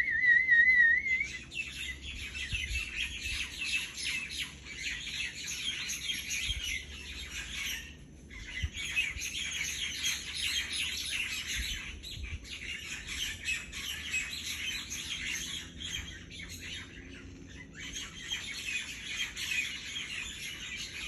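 A person's warbling whistle lasts about a second. Then comes a dense, noisy chorus of myna birds cackling in the trees as they settle in to roost at dusk, with a brief lull about eight seconds in.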